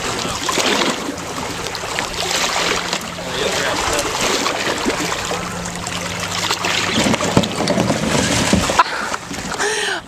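Ocean water splashing and sloshing around a canoe, a continuous wash of water with scattered sharper splashes.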